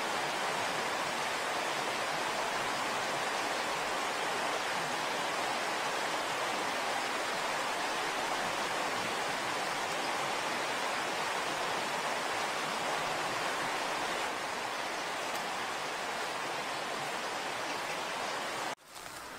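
Steady rush of a shallow stream's water running over its bed. It cuts out briefly near the end.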